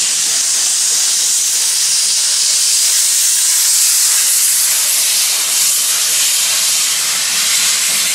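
Steam locomotive releasing steam with a loud, steady hiss.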